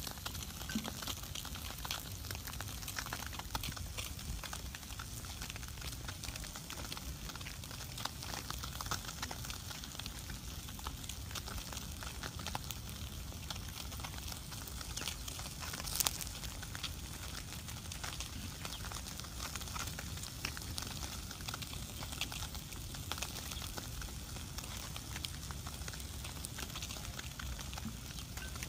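Small split-wood fire crackling, with scattered sharp pops and one louder pop about halfway through, over a steady low rumble.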